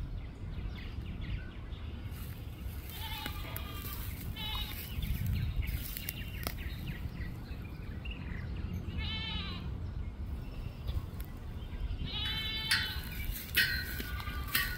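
Foal whinnying: short, high, quavering calls, about five of them spread out, the last two close together near the end.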